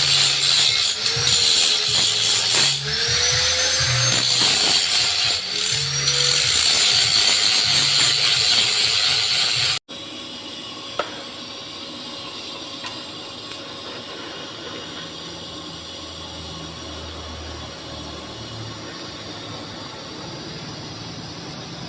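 Angle grinder grinding a bevel on steel, its pitch dipping and recovering each time it is pressed into the work. It stops abruptly about ten seconds in, leaving a much quieter steady hum with one sharp click soon after.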